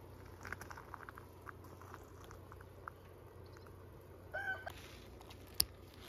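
Faint clicks and rustles over a low steady hum, then a short animal call with a few overtones about four and a half seconds in, and one sharp click near the end.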